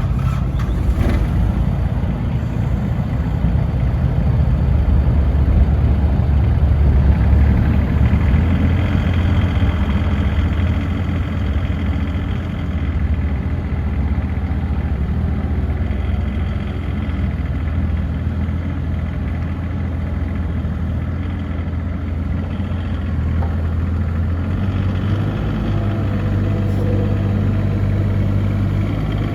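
A CAT 304D CR mini excavator's diesel engine running, its note swelling for several seconds early on and then settling back toward a steadier, slightly quieter run.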